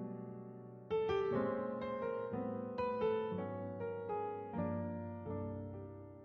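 Background piano music: slow, gentle notes and chords, each left to ring and fade.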